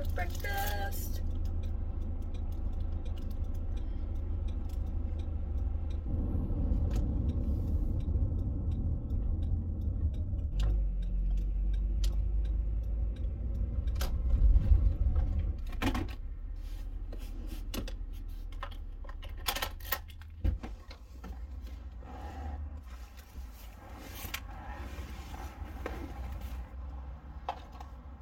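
Low, steady rumble of a Honda Element's four-cylinder engine and road noise, heard from inside the cab while driving. Near the end the rumble is quieter and there are scattered clicks and keys jangling at the ignition.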